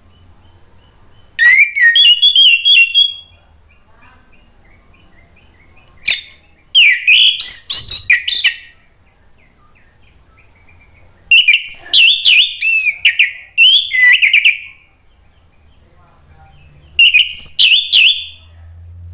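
Orange-headed thrush (anis merah) singing loudly in four bursts of quick, varied whistled phrases, each one to three and a half seconds long, with pauses of a few seconds between.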